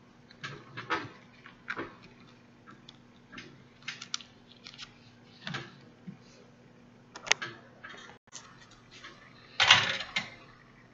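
Irregular clicks, taps and rustles of hand sewing at close range: needle and thread being worked through hair wefts and a mesh wig cap on a mannequin head. A louder knock and rustle comes near the end, over a faint steady hum.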